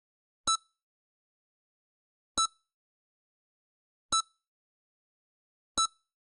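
EKG heart monitor beeping: four short electronic beeps, one about every second and three quarters, each beep marking a heartbeat.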